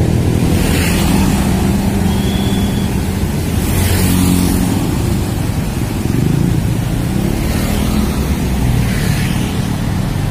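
Busy road traffic of cars and motor scooters passing close by: a steady low engine hum, with tyre and engine noise swelling several times as vehicles go past.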